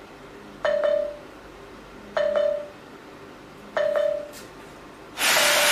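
A short electronic chime, a click followed by a fading tone, repeating four times about every one and a half seconds, with a loud burst of hiss near the end.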